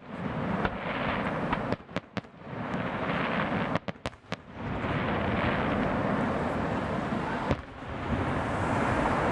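Fireworks display finale going off: a dense, continuous rumble of bursts with sharp cracks, in clusters about two and four seconds in and once more near the end.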